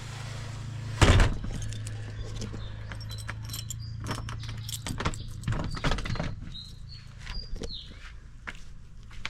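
A door bangs shut about a second in, then keys jangle and clink as the door is locked, over a steady low hum that stops about halfway through.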